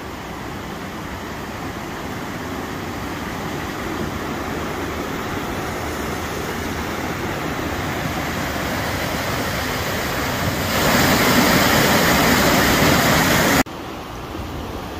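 River water rushing over a small concrete weir, a steady rush that grows louder and then much louder at the white water, before cutting off suddenly to the quieter flow of the stream near the end.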